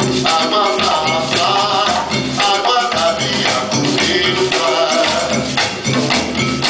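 Live music from a percussion ensemble: tall hand drums keeping a steady rhythm, with voices singing over it.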